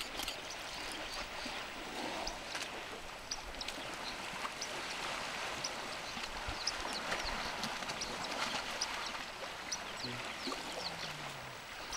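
Water sloshing and splashing as several African elephants wade, roll and play in a pond, in a steady rush with many small high splashes.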